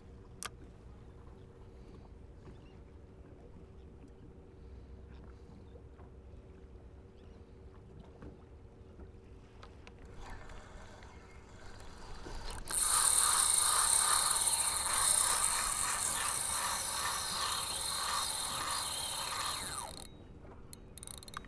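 Spinning reel's drag screaming as a hooked fish strips line off the spool. It builds from about ten seconds in, runs loud and steady for about seven seconds, then cuts off suddenly, with a few clicks from the reel just after.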